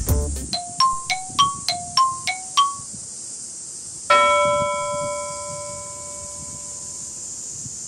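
Mallet-percussion sound effect, like a marimba or glockenspiel: about eight quick plinks alternating between two notes, then about four seconds in a single chime struck and left to ring out over a few seconds. A steady high hiss runs underneath.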